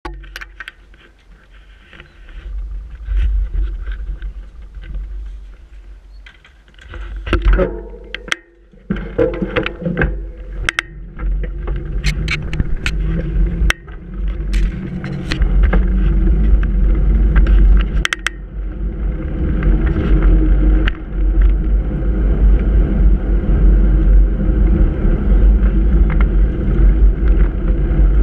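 Bicycle ridden over brick paving, heard from a handlebar-mounted action camera: a run of sharp rattles and knocks, then from about eighteen seconds a steady rumble of wind and road noise on the microphone.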